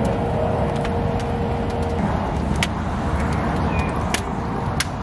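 Wood fire burning under a Santa Maria-style open grill: a steady rushing noise with a handful of sharp crackles from the burning wood.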